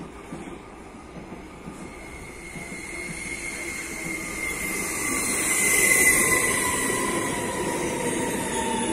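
A train approaching and passing, growing louder to a peak about six seconds in, with high wheel-squeal tones that slide a little lower toward the end.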